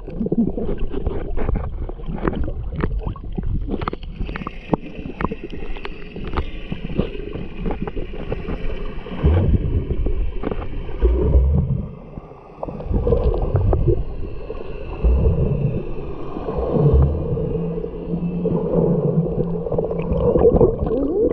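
Muffled water gurgling and sloshing on the microphone of a camera taken into the sea while snorkeling, with many sharp clicks in the first half and low rumbling surges later on.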